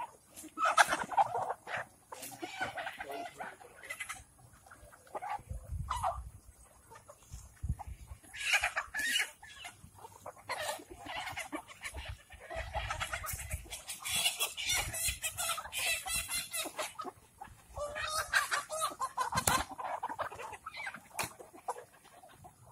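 Flock of Kadaknath chickens clucking and calling, many short overlapping calls coming and going.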